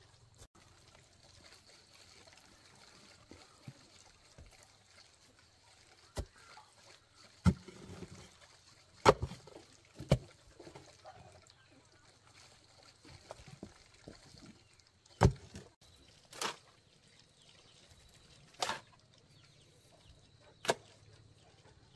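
A hand digging tool chopping into clay soil: about eight sharp strikes at irregular intervals, with pauses of one to five seconds between them.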